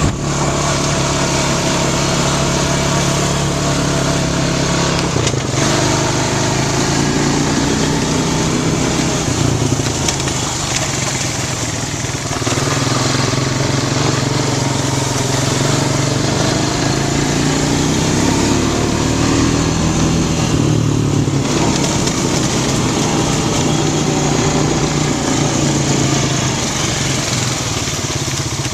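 2005 Honda Rancher 350 ATV's single-cylinder four-stroke engine running under way on its rebuilt carburetor, its pitch stepping up and down several times as the throttle and gears change.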